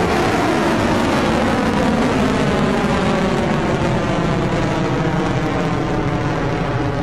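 Rocket Lab Electron rocket's first stage, nine Rutherford engines, firing at full thrust seconds after liftoff: a loud, steady, deep rocket rumble with a slow phasing sweep running through it. It eases off slightly near the end as the rocket climbs away.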